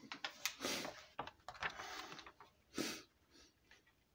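Handling noise: a scatter of short rustles and light knocks as things on a table are moved, the loudest a brief rustle near the middle.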